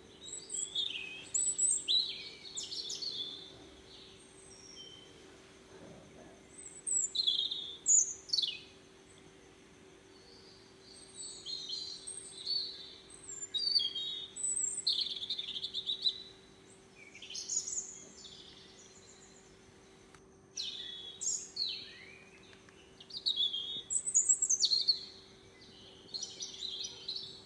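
Birds chirping in bouts of quick high chirps and short downward-sweeping phrases every few seconds, over a faint steady hum.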